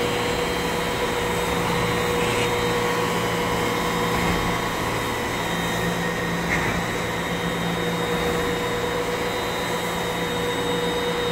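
KUHN vertical twin-auger feed mixer running, its augers turning and breaking up bales of straw in the tub: a steady machine drone with a few fixed whining tones.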